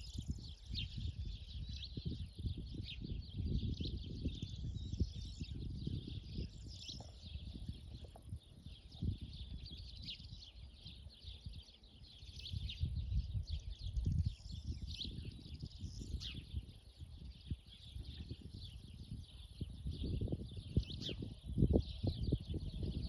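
Several small birds chirping and singing at once in a continuous chorus of short, high calls, over a low rumble that grows stronger near the end.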